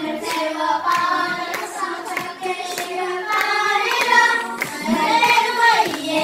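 Children singing a bouncy pop song, with sharp hand claps scattered through it.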